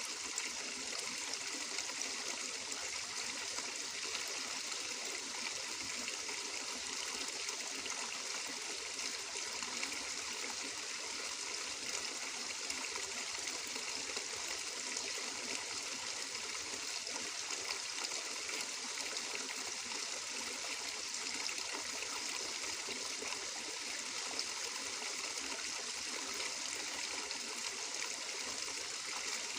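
Water flowing and trickling steadily, like a small stream running over stones, an unbroken bright hiss with no changes.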